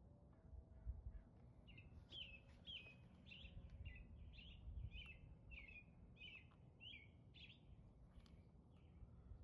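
A bird singing faintly: a run of about a dozen short, falling chirps, roughly two a second, starting about two seconds in and stopping near the end, over a low background rumble.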